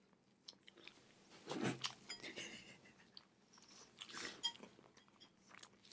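Chewing and biting food close to a microphone, with soft crunches and clicks; the loudest bites come about one and a half seconds in and again around four seconds.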